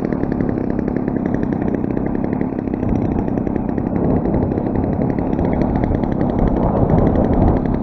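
A 35cc NGH single-cylinder two-stroke gas engine on an RC plane runs steadily on the ground, with fast, even firing strokes. Wind buffets the microphone underneath it.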